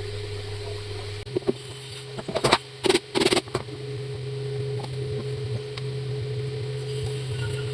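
Table fan's electric motor running with a steady hum. Its pitch steps up slightly just over a second in, and a cluster of sharp clicks and knocks follows about two seconds in.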